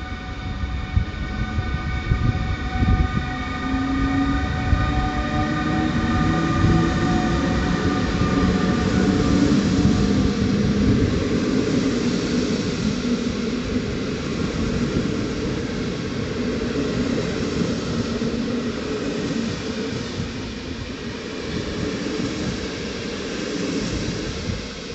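A train running through a railway station, its wheels on the rails making a steady rolling rumble. Several high ringing tones sound over it in the first few seconds and fade away. A lower tone rises in pitch a few seconds in.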